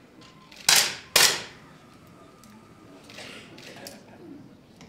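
Two 10 m air pistol shots about half a second apart, about a second in, each a sharp crack with a short echo.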